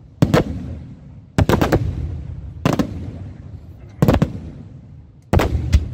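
Aerial firework shells bursting in a steady sequence: a sharp bang or a quick cluster of two to four bangs about every second and a quarter, each trailing off in a rumbling echo.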